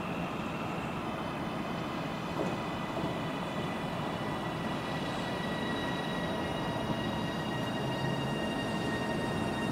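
A train running on the line: steady rail and running noise with high whining tones that drift slightly lower in pitch.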